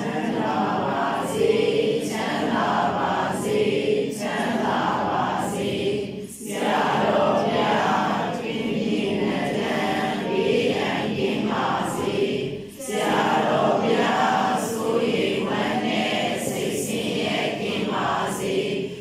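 A group of meditation yogis, mostly women's voices, reciting a homage chant in unison, falling silent together for a breath about every six seconds.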